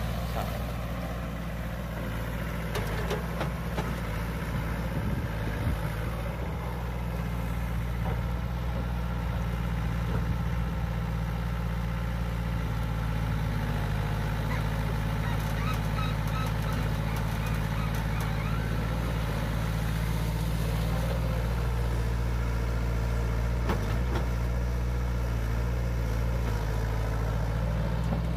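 Sumitomo S160 excavator's diesel engine running steadily under load as it digs a muddy, water-filled ditch, with a few knocks from the working bucket a few seconds in.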